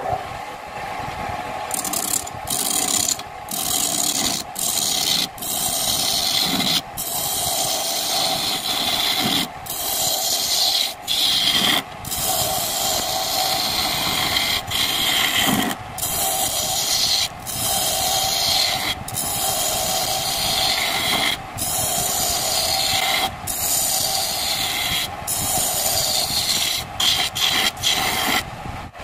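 Home-built wood lathe running with a steady motor hum while a hand-held chisel cuts the spinning wooden bowl blank, a rough scraping of shavings broken by brief gaps every second or two.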